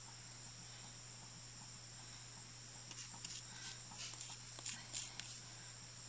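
Faint scraping and light taps of a thin wooden stick scooping a stiff metal-epoxy paste (QuikSteel) out of a small plastic jar and dabbing it into a silicone mold, a few small clicks in the second half, over a steady low hum and a steady high hiss.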